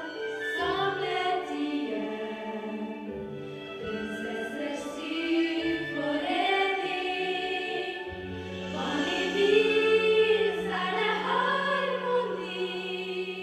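A group of women's voices singing together in harmony, a choir-like sung passage. A low steady note joins beneath them about eight seconds in.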